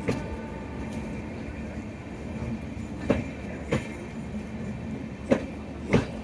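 Passenger train coaches rolling past at moderate speed with a steady rumble. Their wheels knock over a rail joint in clacking pairs, one pair about halfway through and another near the end.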